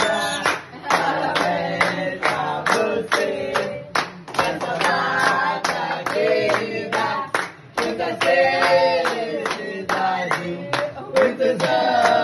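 A small group singing a birthday song together while clapping in time, about three claps a second.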